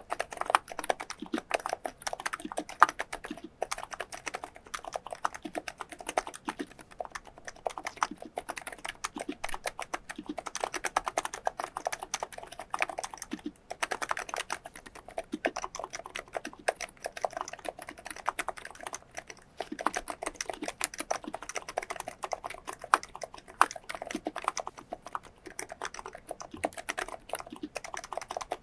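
Steady, fast typing on a COX Endeavour electro-capacitive (Topre-style, non-contact) tenkeyless keyboard with 35 g switches, PBT keycaps and lubricated horseshoe-type stabilisers: a dense run of soft key strokes that pauses briefly about halfway through.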